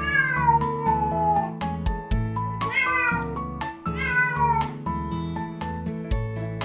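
A ragdoll cat meowing three times, long drawn-out calls that fall in pitch, over light background music. It is a protest at being left behind while the other cat is taken outside.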